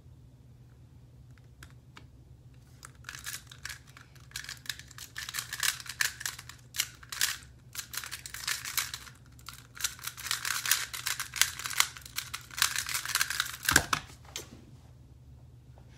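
Square-1 puzzle being turned fast: a dense, irregular run of plastic clicks and clacks that starts about three seconds in and lasts about eleven seconds. It ends in a single thump as the solved puzzle is set down on the table.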